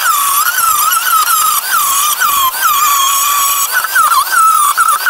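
Angle grinder grinding off sheet-metal lips on a car's firewall: a loud, high whine that sags in pitch again and again as the disc is pressed into the steel, then recovers.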